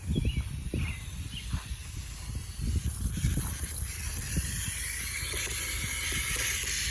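Water hissing through a garden hose and its quick-connect fitting into a soaker hose as the line comes up to pressure. The hiss builds and holds steady from about three seconds in, after low thumps and rumbling in the first half.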